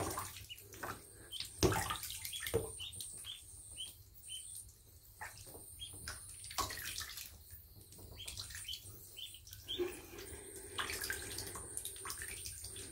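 Pekin and runner ducklings peeping in short high calls as they paddle in shallow bathwater, with light splashing. A few sharp knocks sound in the first few seconds, the loudest about one and a half seconds in.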